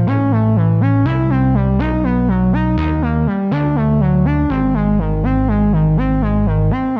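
Background music: synthesizer and electric-piano notes repeating in a steady rhythm over a bass line that shifts every second or two.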